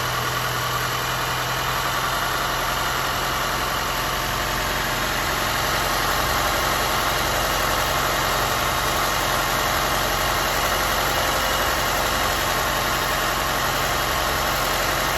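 Audi 1.8 TFSI turbocharged four-cylinder engine idling roughly, a steady running sound that gets a little louder about six seconds in.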